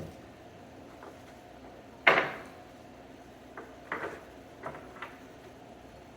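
Hard clunks and clicks of a Murphy bed's locking and lift-arm hardware being worked by hand: one loud clack about two seconds in, then a few lighter clicks.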